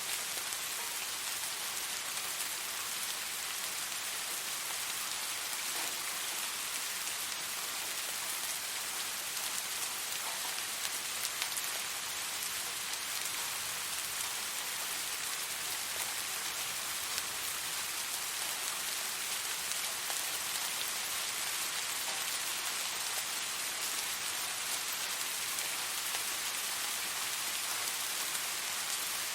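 Steady rain falling on a surface: an even hiss with a few distinct drop ticks scattered through it.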